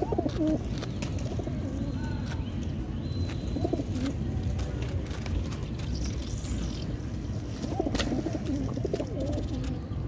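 Racing pigeons cooing in a flock: low, curving coos at the start, again near four seconds in, and a longer run of coos from about eight to nine and a half seconds in, over a low background rumble.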